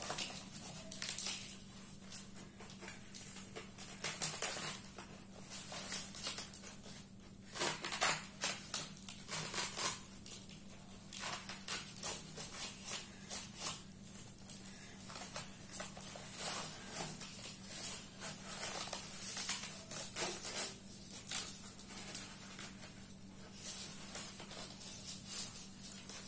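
Hands crumbling and breaking off lumps of hardened dried cow dung from a cloth-wrapped pot, an irregular run of crackling, crunching and rustling of the cloth and paper.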